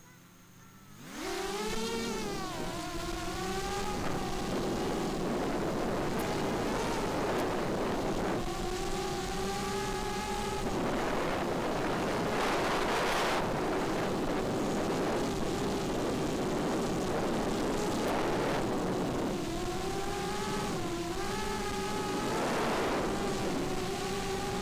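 Electric whine of an FPV racing quadcopter's four brushless motors (2204 2300kv) and 5-inch bullnose props. It spools up about a second in at takeoff, and its pitch rises and falls with the throttle. A steady rush of wind over the onboard camera's microphone runs beneath it.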